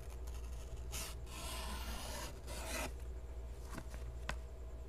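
A knife blade pushing through a sheet of paper: a brief scratch about a second in, then a longer papery rasp lasting about a second and a half, followed by two light ticks near the end.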